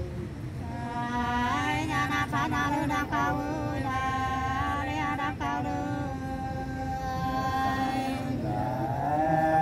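Two women singing sli, the Nùng people's unaccompanied folk song, in long held notes that glide and waver slowly.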